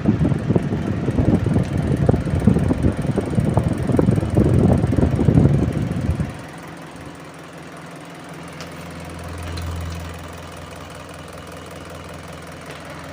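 Electric table fan running with a loud, irregular rattling knock from its worn motor shaft. About six seconds in, the rattle cuts off suddenly, leaving a quieter steady low motor hum.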